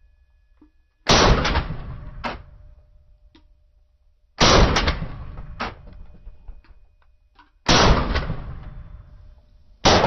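Four gunshots about three seconds apart, the first about a second in and the last near the end, each followed by a long echoing decay and a few smaller sharp cracks.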